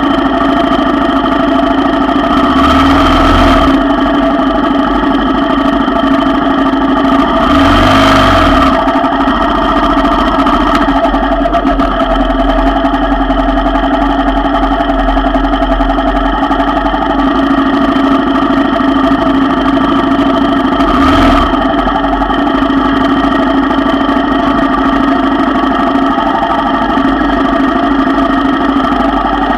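ATV engine running at a steady low speed, its pitch holding even, during a slow trail ride. Three brief louder rushes of noise break in: a few seconds in, around eight seconds, and once more past twenty seconds.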